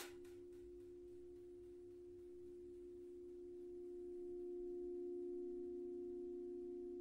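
A 38-inch titanium gong ringing with a steady low hum and fainter higher overtones, swelling gradually to its loudest about five seconds in. Right at the start, a last light hammer tap on metal.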